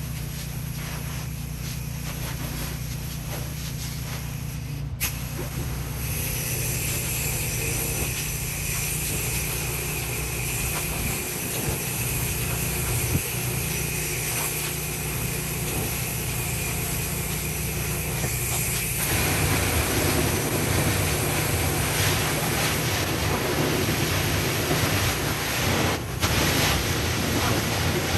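Commercial pressure-washer engine running steadily. About five seconds in there is a click, then the hiss of high-pressure water spraying starts, with a thin whistle in it, and grows louder about two-thirds of the way through.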